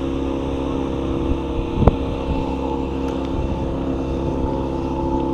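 Motorboat engine running steadily as the boat passes, a continuous drone with a low rumble. A single sharp click sounds about two seconds in.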